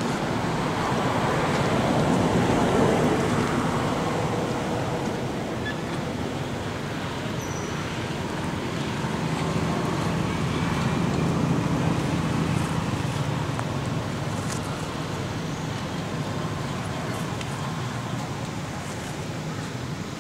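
Steady outdoor background noise, an even low rumble that slowly swells and eases, with no clear calls or knocks standing out.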